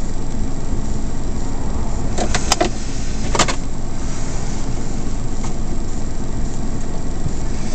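Suzuki Carry kei truck's engine idling steadily, heard from inside the cab, with a few light clicks about two to three and a half seconds in.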